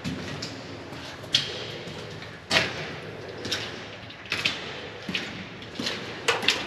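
A series of about eight sharp knocks or thuds at irregular intervals, roughly one a second; the loudest comes about two and a half seconds in.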